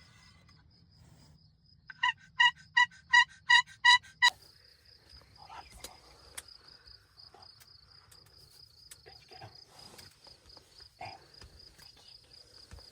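A series of about eight turkey yelps, evenly spaced and lasting about two seconds, then a steady high insect trill with faint rustling.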